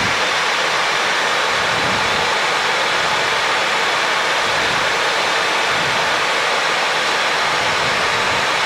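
Steady rushing air noise on the flight deck of a Boeing 737 in flight on approach, with no change in level.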